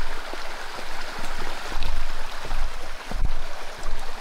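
River water rushing steadily, with a few low thuds in the second half.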